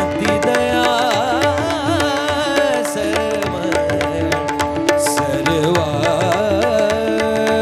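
Marathi devotional bhajan music: a wavering, melismatic vocal run without words over steady held accompaniment notes, with hand-drum strokes and small cymbals keeping the beat.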